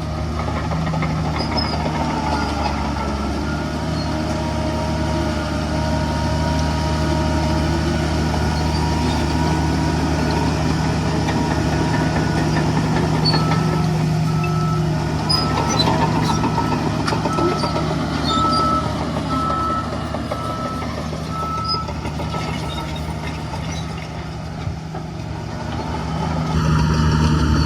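Heavy diesel earthmoving machinery running steadily, with a reversing alarm beeping at an even pace, a little faster than once a second, for several seconds midway. Near the end a louder held tone sounds for about a second and a half.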